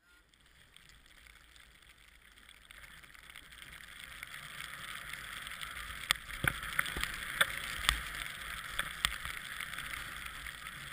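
Snowboard sliding over snow: a hiss that builds as the rider picks up speed, joined by sharp knocks from about six seconds in.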